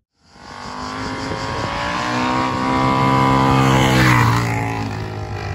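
Motorcycle engine at a steady high speed, growing louder as it approaches and passes, its pitch dropping slightly as it goes by.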